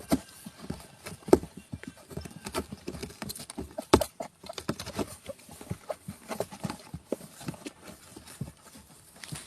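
Irregular light taps and clicks, like footfalls or claws on a hard surface, with two louder knocks about one and four seconds in.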